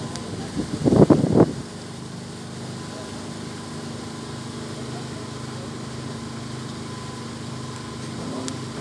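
Passenger boat's engine running with a steady hum as the boat cruises. A person's voice breaks in loudly and briefly about a second in.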